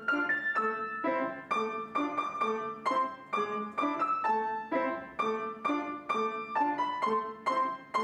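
Background piano music: a gentle run of single struck notes, several a second, ringing and fading one after another.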